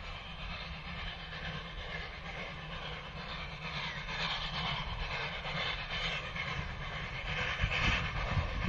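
Heritage steam locomotive approaching while working up a grade, its exhaust and running noise growing steadily louder.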